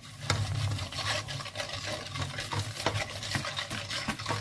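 Silicone whisk stirring milk in an aluminium saucepan, in quick, irregular scraping strokes against the pot.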